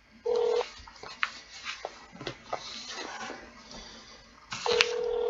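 A telephone call being placed, heard over the phone's speaker: a short beep near the start, then scattered clicks, and near the end the steady ringback tone of the line ringing at the other end begins.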